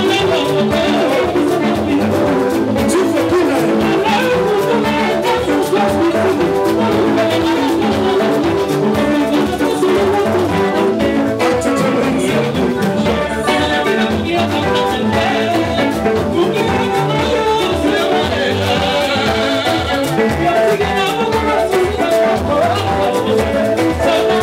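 Live Congolese band music played loud and without a break, electric guitars over a drum kit, with a singer on microphone.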